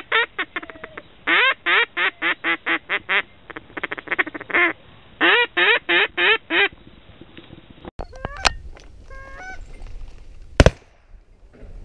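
A hand-blown duck call sounding two long runs of rapid quacks, used to lure ducks in to the decoys. Near the end comes a single loud shotgun shot.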